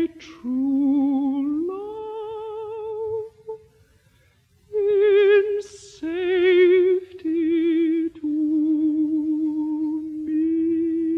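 Unaccompanied contralto voice singing slow, long-held notes with a wide vibrato, a pause for breath about three and a half seconds in, and a long sustained final note. Played from a 1949 Decca 78 rpm shellac record.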